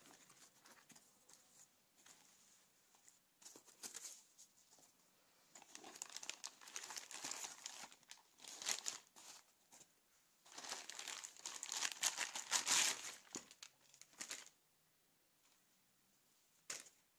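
Clear plastic packaging crinkling and rustling in irregular bursts as it is pulled out of a cardboard box and unwrapped from the charge controller, loudest about two-thirds of the way through, followed by a short lull and a single click near the end.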